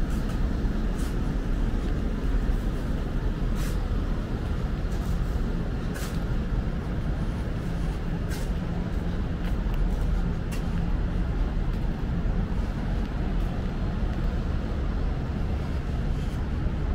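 Outdoor city street ambience: a steady low rumble with faint clicks every two to three seconds.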